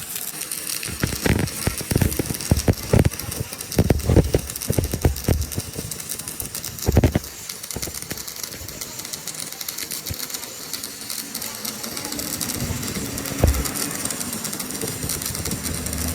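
Workshop work on metal parts: a run of irregular knocks and clinks for about the first seven seconds, then a steady hiss-like machine noise with an occasional faint knock.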